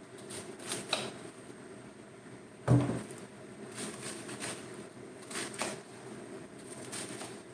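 Kitchen knife cutting cabbage on a wooden chopping board: irregular single cuts and knocks of the blade on the board, with one heavier thump about a third of the way in.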